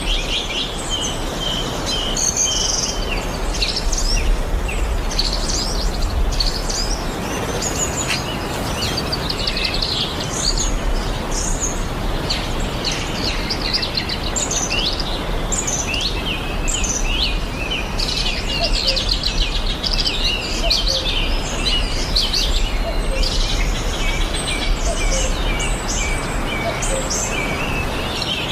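Several birds chirping and calling in a busy, overlapping chorus of short, rapid chirps and trills, over a steady background hiss.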